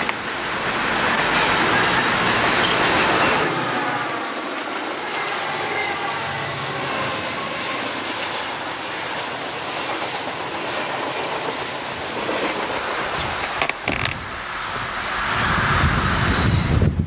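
A train running on rails: steady wheel-and-rail noise that changes character about three and a half seconds in, with faint wavering high tones for a few seconds after that. Near the end a low wind rumble builds on the microphone.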